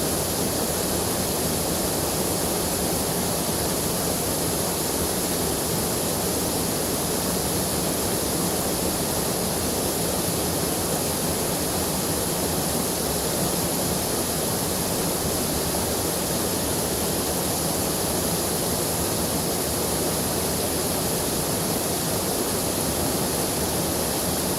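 A river swollen in flood, its water rushing in a steady, unbroken wash of noise.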